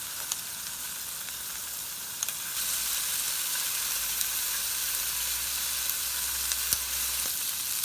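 Pork belly sizzling in a frying pan. The hiss is steady, grows louder about two and a half seconds in, and has a few small pops in it.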